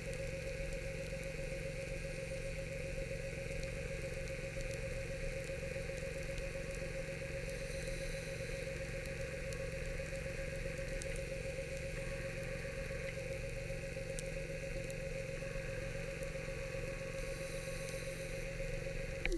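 Underwater scooter (diver propulsion vehicle) motor running at a steady speed, heard through the water as a constant mechanical hum with a held whine. Right at the end the motor winds down, its pitch falling quickly as it stops.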